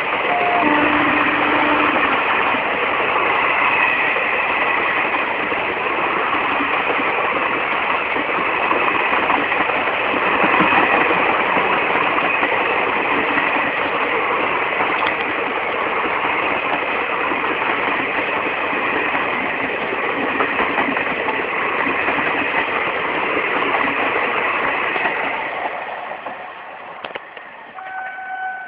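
Express train's passenger coaches passing at speed close by: a loud, steady rumble and clatter of wheels on rails. The noise fades over the last two seconds as the last coach draws away.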